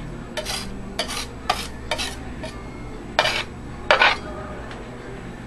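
Spatula tapping and scraping on a glass plate as it works a heap of dry pigment powder. A run of short clicks comes about twice a second, then two longer, louder scrapes a little past three and four seconds in.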